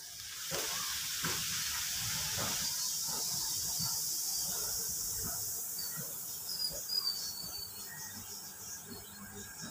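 Baking soda reacting with vinegar in a glass: the foam fizzes and hisses as it froths up and over the rim. It is loudest in the first few seconds, then eases to a fainter crackling fizz.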